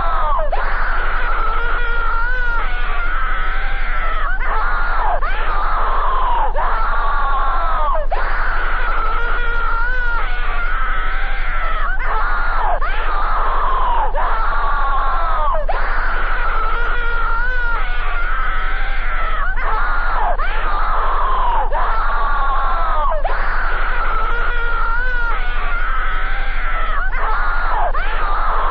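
Heavily distorted, scream-like wailing noise, looped over and over: many overlapping tones, each falling in pitch, about once a second at a steady loud level, over a constant low hum.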